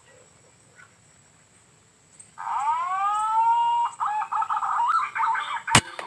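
An animal call that rises and then holds for a second or so, followed by a run of short choppy calls, then a single sharp crack near the end: an air rifle shot at a squirrel.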